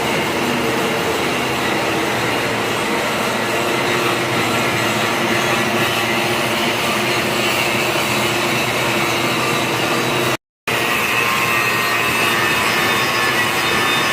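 Angle grinder running steadily against the steel of a welded leaf spring, grinding down the weld bead. It cuts out briefly about ten seconds in.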